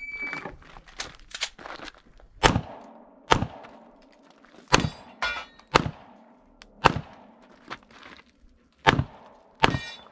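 Handgun shots fired one after another on a shooting stage, about a dozen in all. They come at an uneven pace of roughly one a second, now and then two close together, and each has a short ringing tail.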